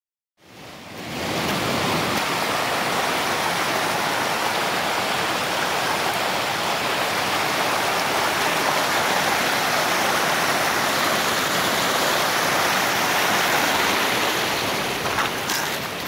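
Mountain creek rushing and splashing over boulders in small cascades: a steady, loud rush of water that fades in during the first second or so. Near the end the rush dips a little and a few short knocks sound.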